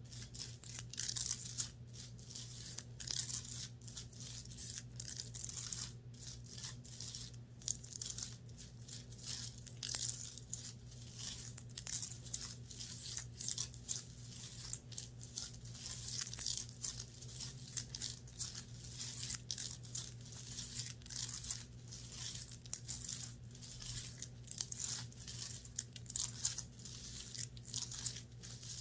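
Fabric of a clothing top being scratched and rubbed: a dense, continuous run of quick scratchy strokes, with a steady low hum underneath.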